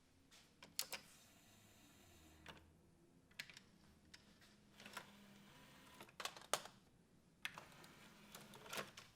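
Faint, irregular clicks and light taps, about a dozen spread over several seconds, over a faint low hum.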